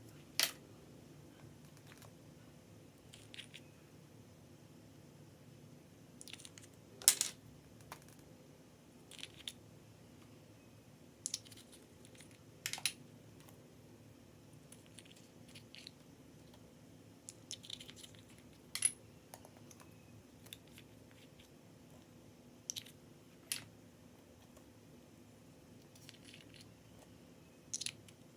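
Small sharp clicks and taps from slime being handled and mixed, scattered irregularly about every second or two over a faint steady hum.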